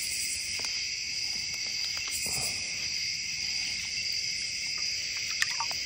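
Steady, high-pitched chorus of night-singing insects, with a few faint clicks and one sharper tick near the end.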